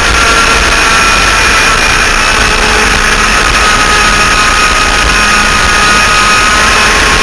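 Twin 100cc two-stroke kart engines running hard at racing speed, picked up by an onboard camera mounted on the kart. The engine note holds near steady and eases slightly lower over the seconds, under heavy wind rush on the microphone.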